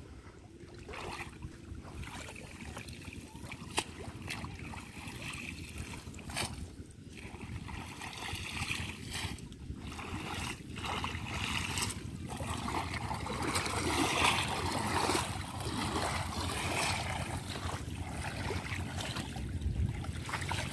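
Shallow water sloshing and splashing as a person wades and works with bare hands in it, in short irregular splashes over steady low background noise, busiest about two thirds of the way in.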